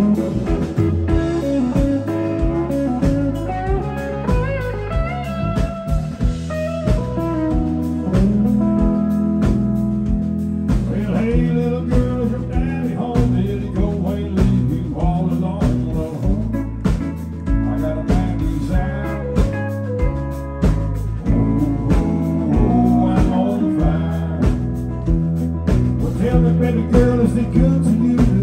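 A live country band playing loud through a PA: electric guitars and pedal steel guitar over bass and drums with a steady beat. The steel or slide guitar bends and wavers through notes a few seconds in.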